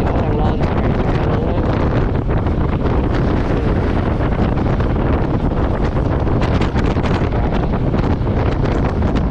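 Wind buffeting the camera microphone over the steady running of a Royal Enfield Meteor 350's single-cylinder engine while riding.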